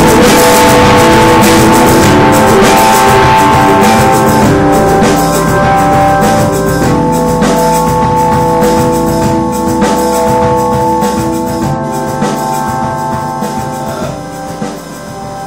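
Loud live rock band music with drums and guitar; the final held chords ring on and die away gradually, ending the song.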